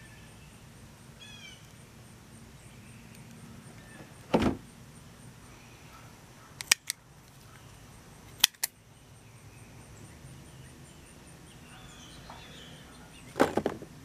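Scissors snipping cayenne pepper stems: a few sharp clicks, two of them close together, over a steady low outdoor hiss. A heavier short thump comes about four seconds in and another near the end.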